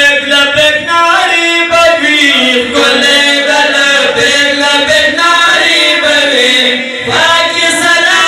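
Men's voices chanting a Pashto naat, a devotional poem in praise of the Prophet Muhammad, the melody gliding in long held phrases over a steady low held note.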